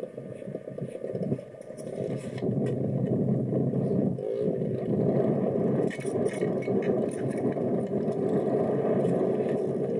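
Dirt bike engine running, heard muffled and rough through an old camcorder recording. It gets louder about two seconds in and then runs steadily, with a brief rise and fall in pitch about four seconds in.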